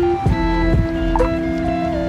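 Background music: plucked guitar notes over a steady beat.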